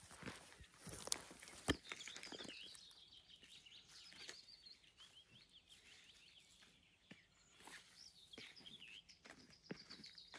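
Faint bird song, a continuous warbling that runs on without a break, over soft rustling from hands working soil in a plastic bucket. Two sharp clicks come a little over a second in.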